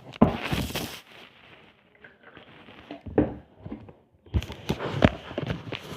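Close handling noises: crackling and rustling in the first second, then a run of quick sharp clicks and knocks near the end.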